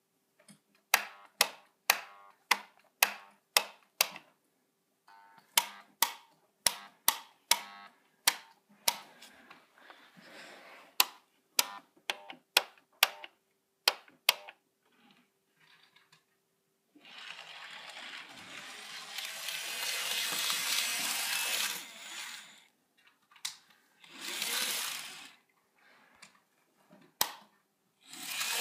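Twin-coil solenoid point motors on a model railway throwing the points back and forth: runs of sharp clicks, two or three a second. In the second half a model train's small electric motor whirs along the track for several seconds, with two shorter whirs near the end.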